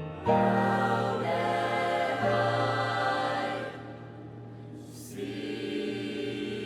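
Vocal ensemble singing held chords, entering strongly just after the start and fading about four seconds in. A short breathy hiss comes near five seconds, then a softer held chord.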